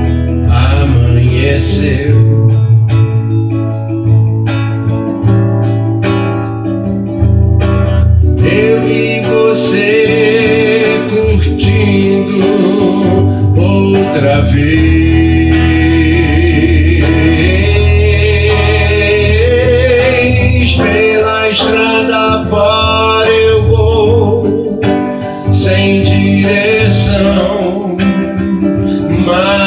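Acoustic guitar playing, with a man singing along from about eight seconds in until about twenty-five seconds, the guitar carrying on under his voice.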